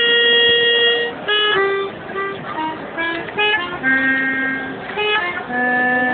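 A melody played on a free-reed instrument, with long held notes broken by runs of quicker notes.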